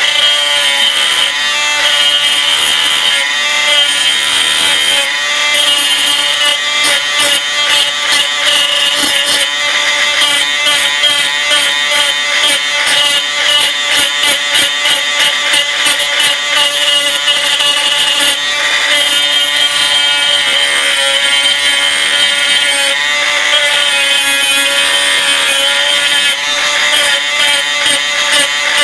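Cordless power tool with an abrasive disc running at speed and grinding the glue-coated plastic edge of a homemade rain sensor, a steady motor whine with rough, fluttering grinding noise as the piece is pressed against the disc. The coating is being ground off the edge to expose the sensor's contact strips.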